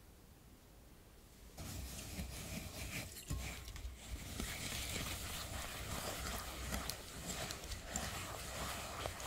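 Wire balloon whisk stirring sugar into raw egg whites in a glass bowl: gritty, wet swishing with light clicks of the wires against the glass, starting about one and a half seconds in.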